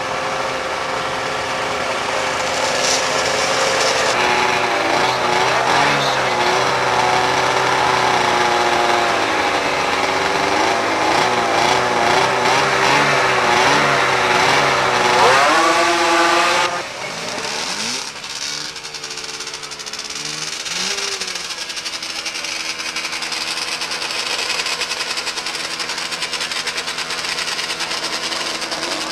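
Several racing snowmobiles' two-stroke engines running together, their pitches wavering as they are revved. About sixteen seconds in the pitch sweeps up and the sound drops off suddenly, leaving a quieter engine running steadily.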